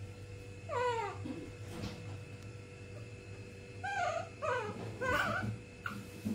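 Baby monkey calling: one high call sliding down in pitch about a second in, then a run of three or four short wavering cries about four seconds in.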